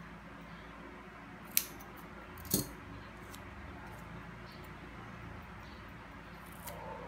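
Two sharp snaps about a second apart as a strip of double-sided tape is pulled off and torn, then a light rustle of paper cut-outs near the end, over a faint steady hum.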